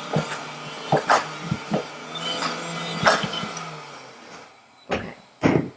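High-speed blender running on a thick red pepper dip, with several knocks as the tamper is worked down through the lid. The motor switches off and winds down about four seconds in, and a couple of clunks follow as the jar is handled.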